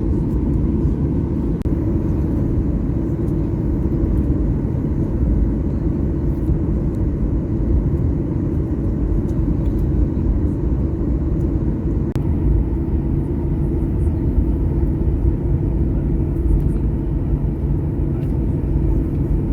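Steady low rumble and hum inside an airliner's cabin, parked at the gate, with a few faint clicks.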